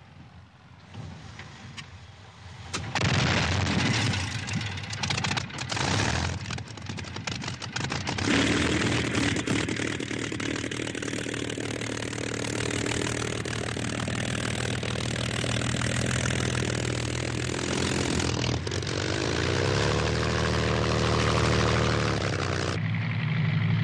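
Supermarine Spitfire's Rolls-Royce Merlin V12 starting up: after a few fairly quiet seconds the engine catches about three seconds in with ragged, uneven firing. It then settles into a steady run, its note wavering up and down near the end.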